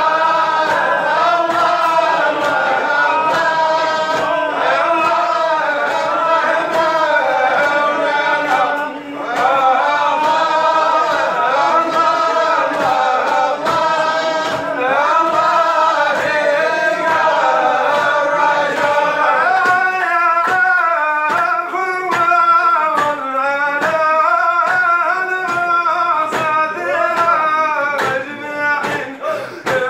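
Men singing a slow, melodic chant together in unison, the voices gliding and ornamenting each note. About two-thirds of the way in, a steady beat of sharp strikes joins the singing.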